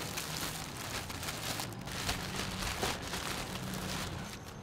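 Thin plastic bag crinkling and rustling as fruit is packed into it by hand, easing off a little after four seconds.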